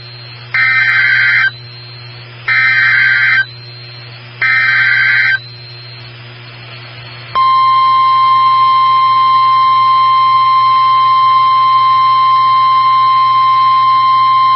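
NOAA Weather Radio alert: three short screeching data bursts of the SAME header, about a second apart, then, about seven seconds in, the steady 1050 Hz warning alarm tone that announces a new warning, over a low receiver hum.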